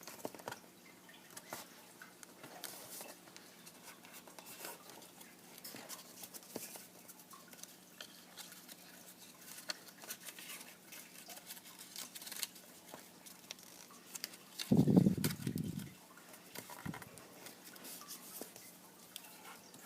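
Square sheet of origami paper being handled and creased by hand for a petal fold: quiet, irregular crinkles and small creasing clicks. About three-quarters of the way through, a brief murmur of voice is the loudest sound.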